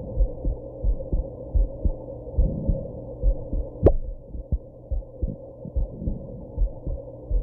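A woman's heartbeat heard through a chest-placed microphone: a steady run of paired low thumps, recorded after drinking and smoking. A single sharp knock sounds about halfway through.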